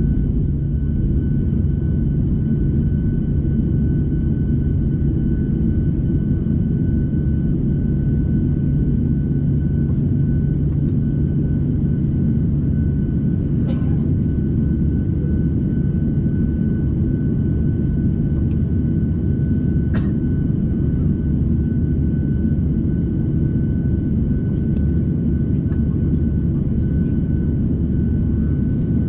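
Steady cabin noise inside a Boeing 737: a low, even roar of the jet engines and airflow, with a thin steady whine above it. Two faint clicks come about halfway through and a few seconds later.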